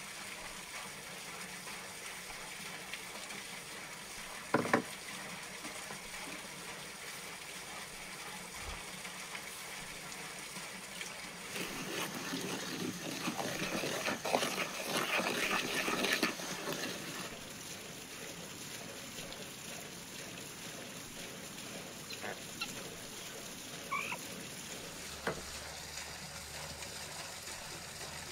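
Wooden spoon stirring a runny paprika-and-spice sauce in a wooden bowl: a wet sloshing and scraping for several seconds in the middle, with a few knocks earlier and a couple of faint short calls near the end.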